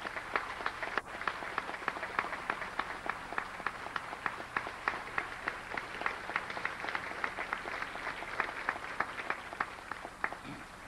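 Audience applauding, with crisp, evenly paced claps about four a second standing out over the general clapping. It dies away near the end.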